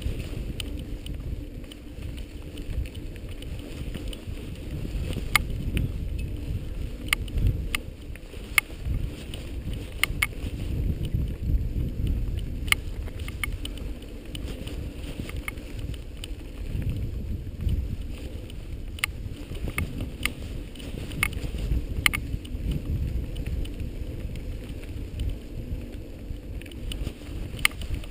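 Rumbling wind and motion noise on a moving camera's microphone along a bumpy trail, with scattered clicks and rattles throughout.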